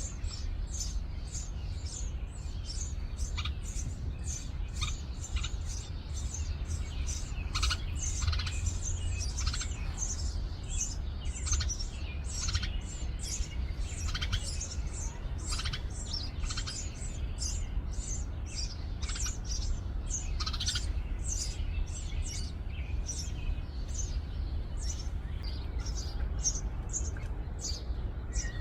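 House sparrow nestlings chirping in their nest: a dense, continuous run of short, high chirps, over a steady low rumble.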